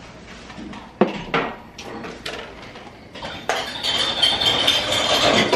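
Dishes and cutlery clinking as they are handled. There are a few sharp knocks in the first half, then a louder, continuous clatter over the last two seconds.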